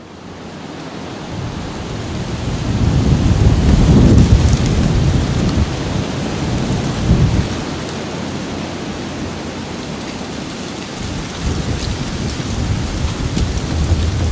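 Steady rain with low rolling thunder, fading in at the start; the heaviest rumble comes about four seconds in, with a shorter one about three seconds later.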